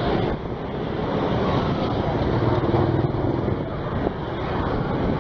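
Dense stream of motor scooters and small motorbikes passing close by, their small engines running together into a steady traffic drone with tyre noise.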